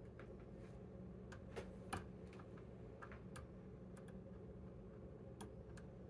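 Faint, irregular small metallic clicks and ticks of a flag pick working the pins inside a TESA T80 dimple lock cylinder under tension, the two loudest a little after one and a half and about two seconds in. A steady low hum runs underneath.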